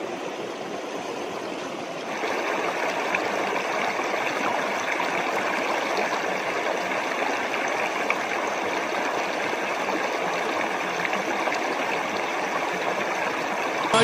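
Spring water running steadily over rocks in a small stream, louder from about two seconds in.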